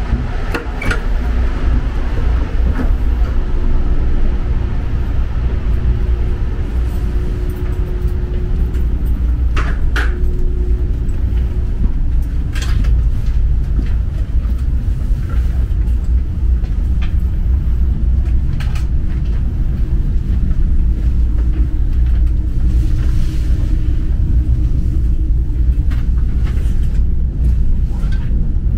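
Steady low rumble of a railway station's ambience, with scattered light clicks and knocks.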